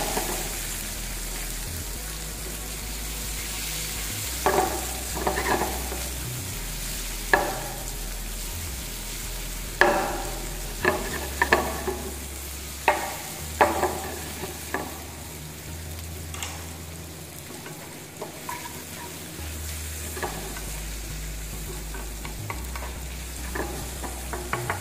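Julienned bell peppers and zucchini sizzling in hot olive oil in a frying pan, with a steady hiss. Sharp knocks and scrapes sound at irregular moments as the vegetables are stirred with a spatula, most of them in the first half.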